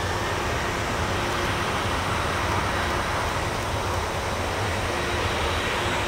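Boeing 747-400 freighter's four jet engines at takeoff power during the takeoff roll: a steady rushing roar that grows slightly louder.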